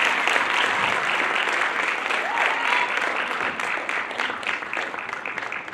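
Audience applauding and cheering after a dance routine, the clapping thinning out and fading toward the end.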